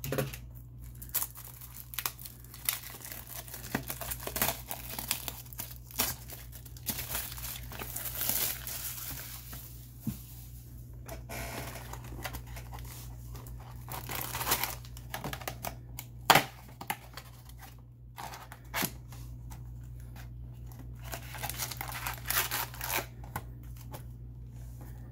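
Plastic shrink wrap being torn and crinkled off a cardboard trading-card booster box, then the box opened and its foil booster packs handled. The crackling is irregular, with a few sharp clicks.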